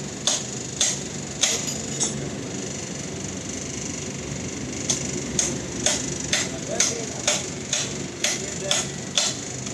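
Hammer blows ringing on steel, about two a second, striking parts of an excavator's track chain. There are four blows, a pause of about three seconds, then a steady run of ten more.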